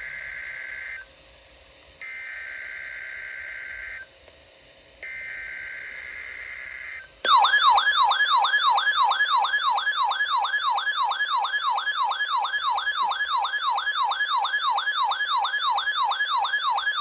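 NOAA Weather Radio test signal: three short bursts of buzzing two-tone SAME digital alert header, then a loud warning alarm that warbles up and down about three times a second.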